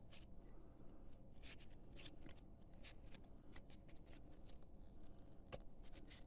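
Trading cards being flicked and slid against one another in the hands as a pack is sorted through: a quiet, irregular run of soft paper rustles and flicks, with one sharper click near the end.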